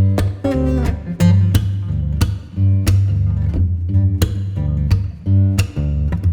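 Background music: a song with plucked guitar and a steady beat over a strong bass line.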